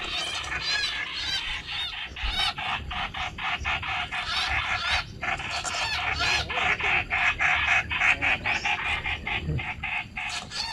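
A flock of birds calling from the trees: a dense, rapid chatter of short, sharp calls, loudest a little past the middle.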